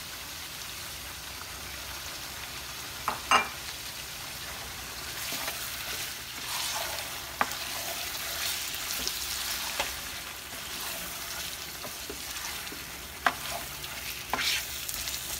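Goat ribs and sliced onion frying in oil in a non-stick pan: a steady sizzle, with a wooden spatula stirring and knocking sharply against the pan several times, loudest about 3 s in and about 13 s in.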